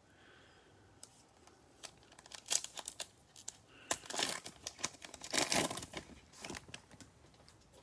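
A foil trading-card pack (2020 Panini Mosaic football) crinkled and torn open by hand: a run of irregular crackling rustles, loudest around the middle.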